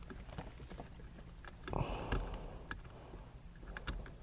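Hands working a plastic wiring connector for the seatbelt sensor under a car seat, trying to squeeze its latch and pull it apart: small irregular plastic clicks and scrapes, with a louder rustle just under two seconds in.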